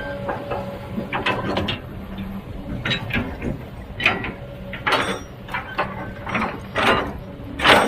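Heavy earthmoving machine at work: its diesel engine runs steadily under irregular metallic clanks and knocks, with the loudest cluster near the end.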